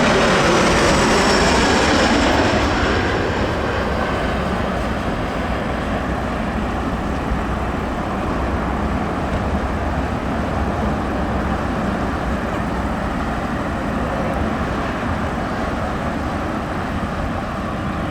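Jet airliner landing: a loud rush of engine and air noise that eases over the first few seconds, then settles to a steady rumble.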